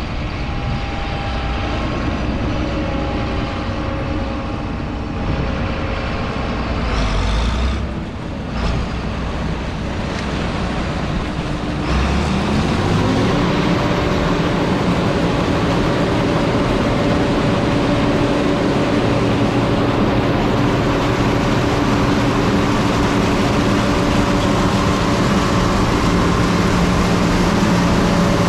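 John Deere 9600 combine harvester's diesel engine and machinery running. About twelve seconds in the engine pitch rises and settles into a steady, higher drone for the rest of the sound.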